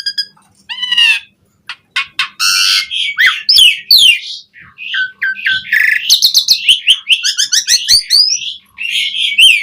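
Asian pied starling (jalak suren) singing a dense, varied song of whistles, fast chattering notes and harsh grating calls, ending in a run of repeated falling whistles.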